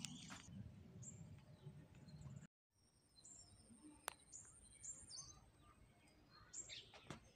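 Near silence with faint, scattered bird chirps.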